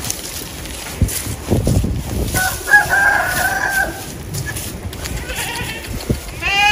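A rooster crowing: one long call of about a second and a half, starting about two and a half seconds in, and the start of a second call near the end. Footsteps rustle through grass underneath.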